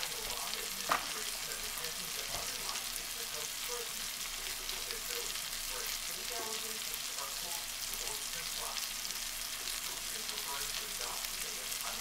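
Chicken pieces and snap peas sizzling in butter in a nonstick frying pan: a steady fizzing crackle with small scattered pops, and one sharp click about a second in.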